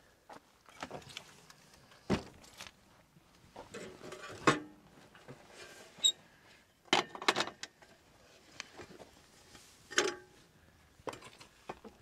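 Entry door of a slide-in truck camper being worked open: a handful of separate clicks, knocks and rattles from the latch and door, the loudest about four and a half seconds in.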